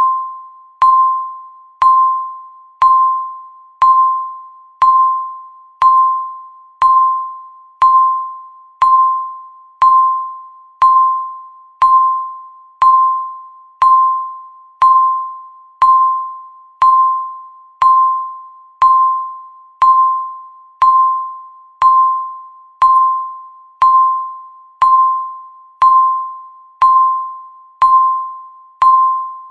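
Countdown timer beeps: one short, clear electronic tone every second, each starting sharply and fading away before the next.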